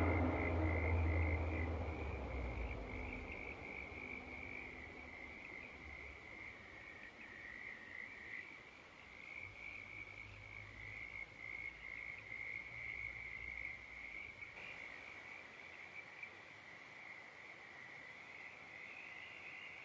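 The echo of a Nathan P3 locomotive horn dies away over the first couple of seconds. It leaves a steady, high-pitched chorus of frogs calling.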